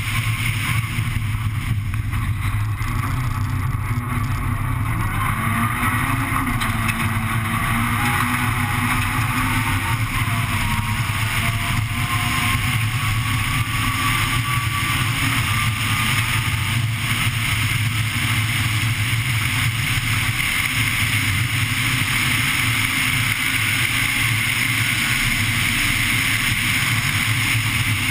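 Interior onboard sound of a Honda Civic Type R N3 rally car's four-cylinder engine running hard on a gravel stage, a steady drone whose pitch climbs gradually for several seconds partway through, over the rumble of gravel under the tyres.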